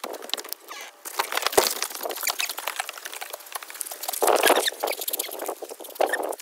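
Footsteps crunching on gravel and knocking on wooden deck steps, an irregular patter of short crunches with a few louder steps.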